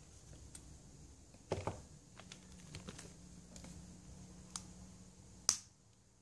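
Small clicks and knocks of nylon gears and steel ball bearings being handled and fitted into an RC car's plastic gearbox, a few seconds apart. A duller knock comes about a second and a half in, and the sharpest click near the end.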